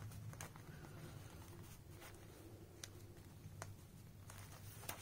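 Faint handling of a handmade paper junk journal: a few scattered light ticks and soft paper rustles over a low steady hum.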